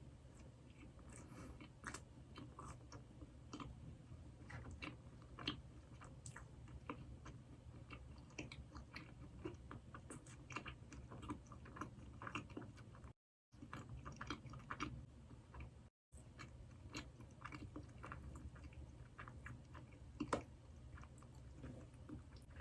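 A person chewing and biting Krispy Kreme doughnuts close to the microphone, with many small wet mouth clicks over a steady low hum. The sound cuts out to silence twice for a split second, a little past the middle.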